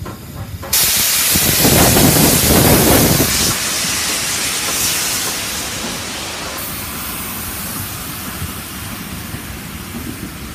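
Steam tank locomotive No. 41298 venting steam: a loud hiss cuts in suddenly about a second in, with a deep rumble under it for the first couple of seconds. It then eases to a steady, softer hiss.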